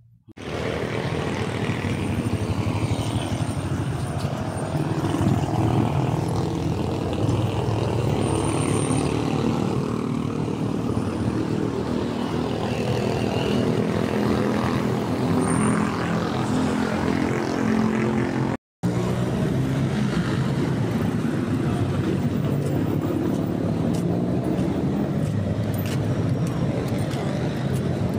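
Street traffic: motorcycle and motorized tricycle engines running, a steady engine drone. The sound cuts out briefly about two-thirds of the way through.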